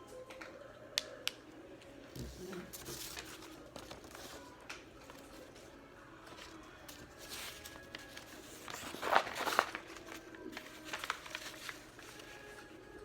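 Sheet of paper rustling and crinkling as it is handled and folded, in irregular bursts. There are two sharp clicks about a second in, and the loudest rustle comes about nine seconds in.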